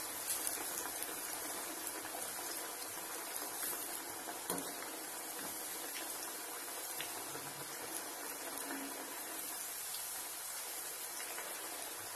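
Frozen potato fries on their first deep-fry in hot oil: a steady sizzle of oil bubbling hard around the fries, with a fine crackle throughout. There is a single click a little over a third of the way in.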